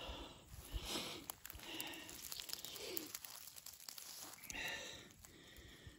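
Faint rustling and small clicks as a wire-framed yabby net is lifted and handled.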